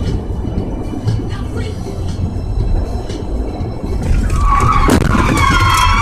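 Steady low road rumble inside a moving car. About four seconds in, a loud high squeal with overtones comes in over it and lasts about two seconds.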